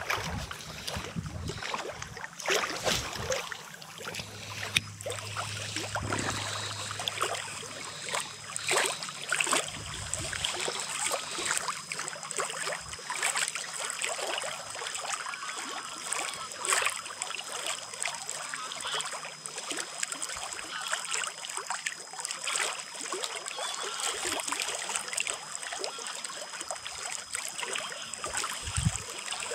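Choppy reservoir water lapping and splashing against a stone dam wall, in small irregular slaps over a steady wash.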